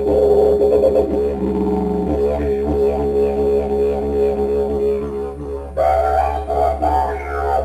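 Didgeridoo playing a continuous low drone with shifting overtones above it. About six seconds in the sound changes, with brighter, wavering overtones riding over the drone.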